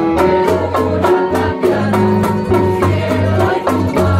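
Live rondalla ensemble playing: strummed guitars and plucked strings over a steady beat, with hand drums and keyboard.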